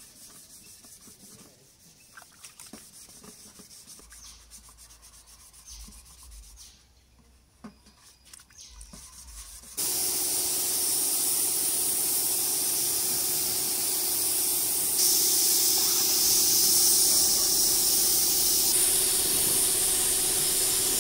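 Faint rubbing as a motorcycle mudguard is sanded by hand. About ten seconds in, a gravity-feed paint spray gun starts with a sudden, loud, steady hiss of compressed air and atomised paint, over a steady low hum.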